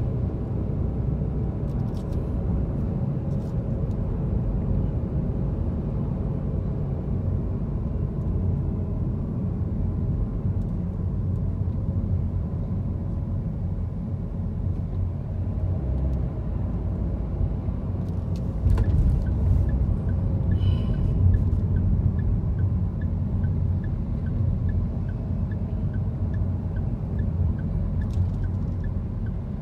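Car driving on city streets, heard from inside: a steady low rumble of engine and tyres, louder for a few seconds about two-thirds in. From then on a light, regular ticking of about two a second runs on.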